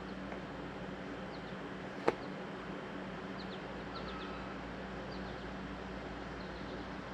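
Quiet background with a steady low hum and several short, high bird chirps scattered through it; one sharp click about two seconds in.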